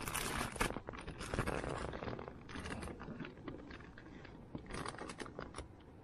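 Irregular rustling, scraping and light knocks of hands handling cooking kit and a mug.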